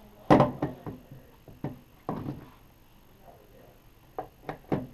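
Handling knocks and clicks as ECG lead wires are clipped on: one loud knock about a third of a second in, a few softer knocks, then a quick run of small clicks near the end.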